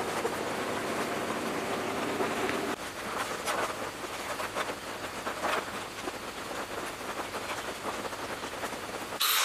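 Handheld butane canister torch hissing steadily at a steel plate for about the first three seconds. Then, after a sudden change, scattered light scratches and taps of a pencil and steel ruler marking lines on the plate.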